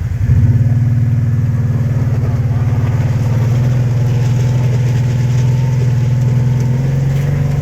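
An engine running steadily at a low, even speed. It gets louder about a third of a second in, then holds steady.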